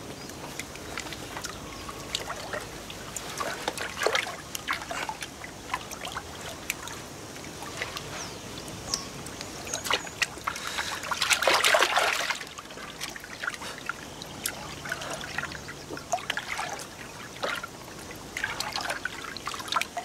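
Water dribbling and splashing around a small rowing boat as its oars dip and pull, with many small drips and one louder splash a little past the middle.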